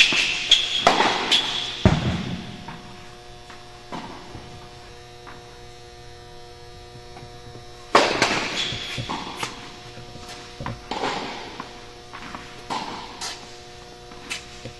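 Tennis ball struck by rackets and bouncing on an indoor hard court: a series of sharp hits at the start, a quieter stretch in the middle, then more hits later. A steady electrical hum runs underneath.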